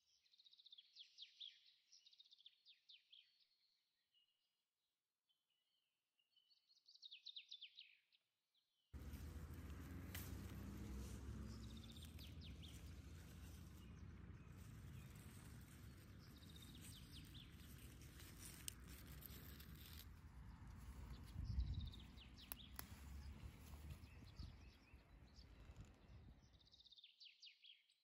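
Small birds chirping in short repeated phrases. A steady outdoor hiss with a low rumble cuts in suddenly about a third of the way through, with a brief thump about two-thirds through, and drops out shortly before the end, leaving the birdsong alone.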